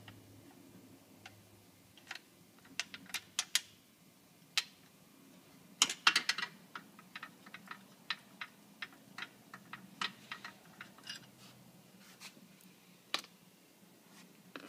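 Light, irregular metal clicks and taps, with a cluster about six seconds in, as a 4 mm Allen wrench is worked on the two Allen screws holding the cart's gearbox.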